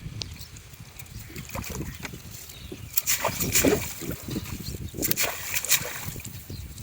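Water splashing and sloshing around a small boat in irregular bursts, loudest about three seconds in and again about five seconds in, over a low rumble.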